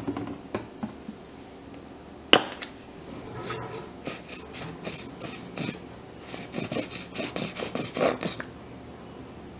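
A single sharp click about two seconds in, then a plastic squeeze bottle of yellow mustard squirting and spluttering in a quick run of short, hissy bursts as it is squeezed over a burger, faster and denser near the end before stopping.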